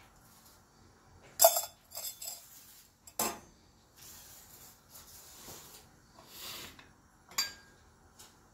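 A metal spoon and a stainless steel cup clinking against each other and against the pan: several sharp, separate clinks, the loudest about a second and a half in.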